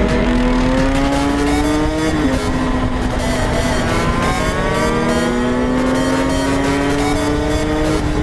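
125 cc two-stroke supermoto engine under load. Its pitch climbs slowly, drops sharply about two seconds in as at a gear change, then climbs steadily again for most of the rest.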